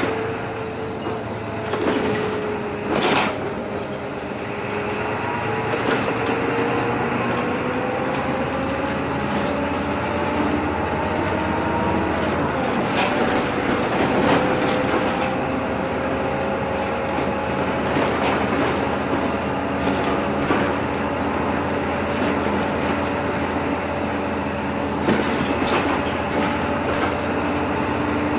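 Inside a city bus on the move: steady engine and road noise with a whine that dips, then climbs slowly in pitch as the bus gathers speed out of a roundabout, and then holds steady. Short knocks and rattles from the cabin come every few seconds.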